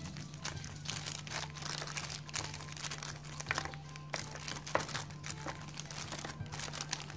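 Thin plastic bag crinkling in irregular crackles as hands and a spoon press rice down inside a plastic-lined small metal tin, over a steady low hum.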